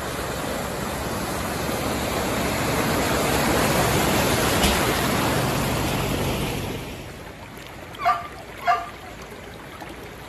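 Fast-flowing muddy floodwater rushing steadily and loudly, dropping to a quieter hiss about seven seconds in. Two short pitched sounds come near the end.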